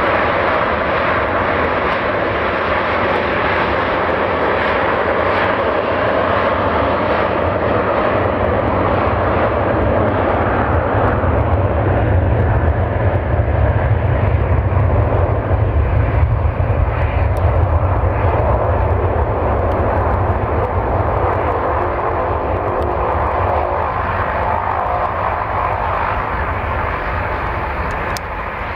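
US Airways Airbus A321 jet airliner on its takeoff roll, both engines at takeoff thrust. It makes a steady deep rumble and jet noise that swells to its loudest as the plane passes, about halfway through, then fades as it speeds away down the runway.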